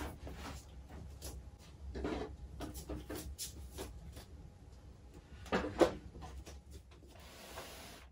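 A small wooden desk being shifted by hand on a wooden floor: scattered knocks and light scrapes, with one louder knock a little after halfway.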